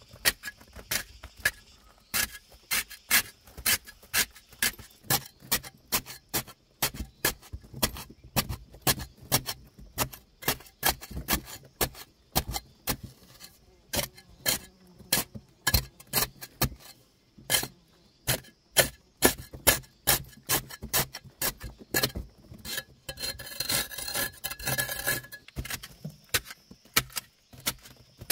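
A metal hoe blade chopping and scraping into packed clay, a quick irregular run of sharp scrapes and knocks, with crumbling soil falling. About two-thirds of the way through comes a longer, rougher scraping rush.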